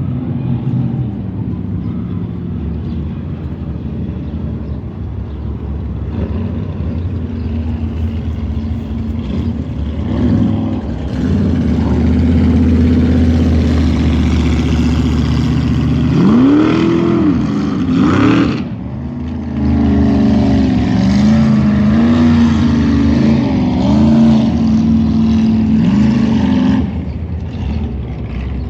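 High-horsepower jet boat engines running loud and steady, then revving up and down several times in the second half.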